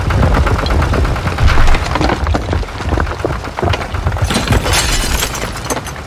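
Loud heavy-machinery sound effect: a low engine rumble with fast, even rattling, and cracking, crashing noise over it, heaviest a little after the middle.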